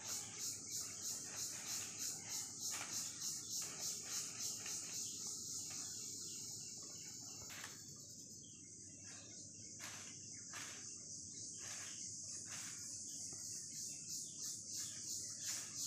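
Insects chirping in a steady high-pitched pulse, about three chirps a second, which smooths into a continuous buzz for a few seconds mid-way.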